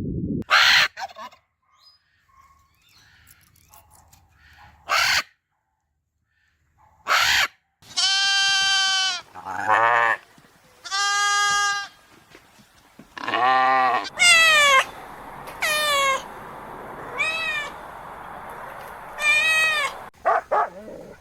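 Goats bleating: a string of loud, drawn-out calls in the second half, some held at one pitch and some falling, after a few short noisy bursts early on.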